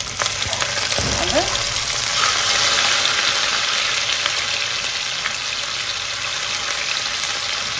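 Chopped onion and garlic sizzling steadily in hot oil in a frying pan.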